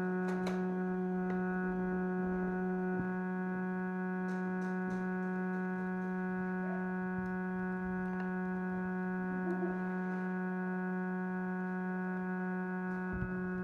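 A steady low electrical-sounding hum or drone with many overtones holds at an even level, with a few faint clicks over it.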